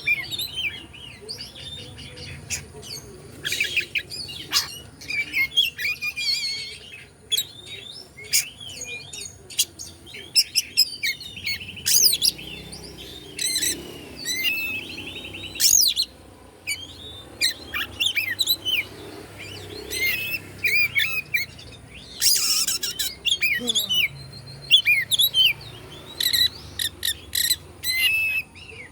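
Oriental magpie-robin (kacer) singing: a long, varied run of quick whistled phrases and chirps, broken by a few harsh rasping notes.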